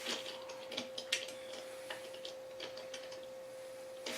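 Scattered light clicks and ticks of metal sprocket bolts and parts being handled while rubber gaskets are worked over the bolts of a bicycle rear-wheel sprocket, over a faint steady hum.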